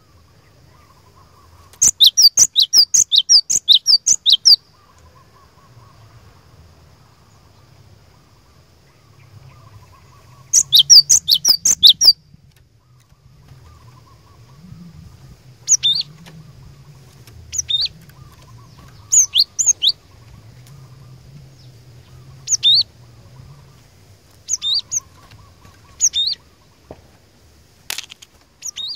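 Cinereous tit (glatik batu) singing: two long bursts of rapid, high, repeated notes, then short two-note phrases repeated every second or two.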